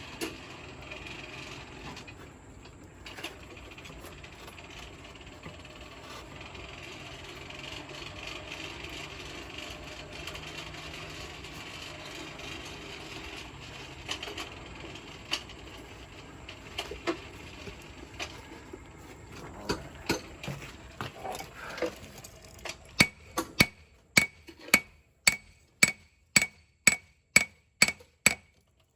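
Coal forge with its blower running steadily, a few scattered clinks over it, then about two-thirds of the way in a run of about a dozen even hammer blows on the blade over the anvil, about two a second, each with a ringing tone, stopping just before the end.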